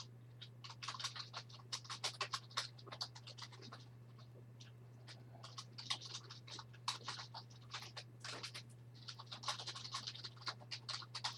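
Faint scratchy rustling and clicking from trading card packs and cards being handled, in three spells of a few seconds each, over a steady low electrical hum.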